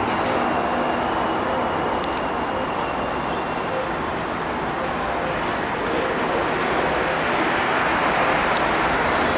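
A New York City subway train on the elevated 7 line approaching the station, a steady rolling noise of wheels on the rails that holds at an even level.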